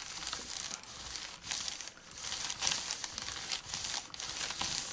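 A hand iron sliding back and forth over a sheet of baking parchment, the paper crinkling and rustling irregularly as it is pressed.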